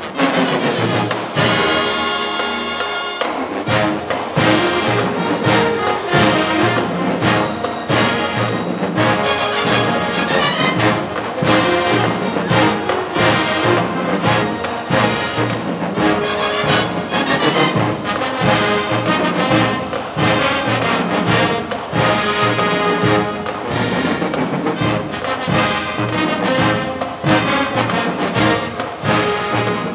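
Marching band playing loud brass with a drumline beat. A held brass chord sounds briefly without the drums about two seconds in, then the full band and percussion come back in.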